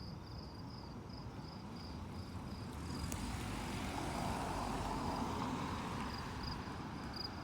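Distant thunder, a long low rumble that swells about halfway through and then fades. Crickets chirp steadily under it.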